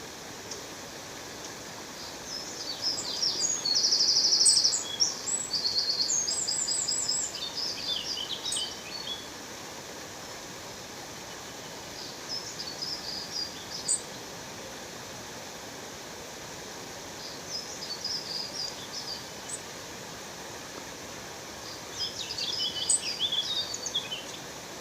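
Steady rush of a waterfall under songbirds chirping and trilling in several bursts, the loudest and busiest about 3 to 7 seconds in, with shorter phrases around 13, 18 and 23 seconds.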